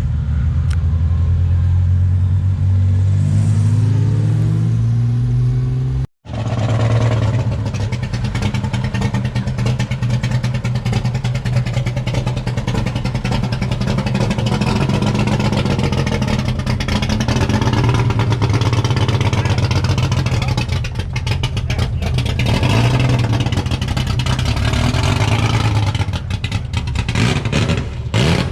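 Carbureted Chevrolet Opala engine running loud and steady with a short rise in revs. About six seconds in it cuts off abruptly to a second Opala engine with a rough, pulsing exhaust note that rises and falls with throttle blips near the end.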